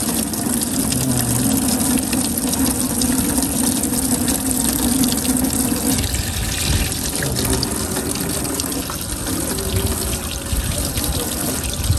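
Tap water running and splashing into a metal fish-cleaning sink as fish are rinsed under it by hand; a steady rushing sound. A low hum sits under it and stops about halfway through.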